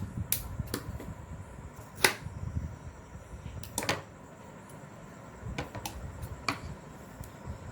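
Tailoring scissors snipping through blouse fabric: several sharp, irregular metal clicks over soft rustling of cloth being handled.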